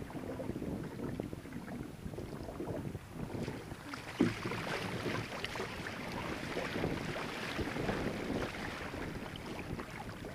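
Wind buffeting the microphone over water rushing and splashing along an Epic 18X sea kayak's hull as it runs through choppy water under sail. The splashing grows louder and brighter about three and a half seconds in, with one sharp knock a little after four seconds.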